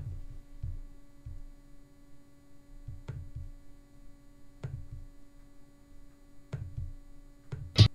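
Steady low electrical hum with scattered low thuds, and a few separate sharp computer-mouse clicks spaced one to two seconds apart.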